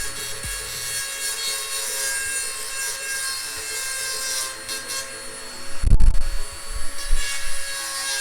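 Dremel rotary tool grinding sheet metal to enlarge bolt holes: a steady high whine over gritty grinding hiss that swells and eases as the bit is worked. A cluster of heavy low thumps about six seconds in.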